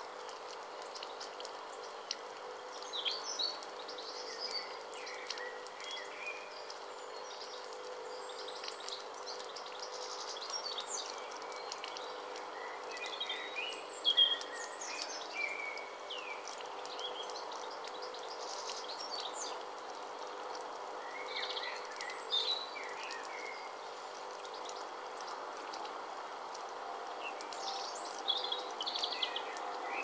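Water trickling steadily over the pebbles of a small stone bowl bubble fountain, with songbirds singing short phrases every few seconds; the loudest call comes about halfway through.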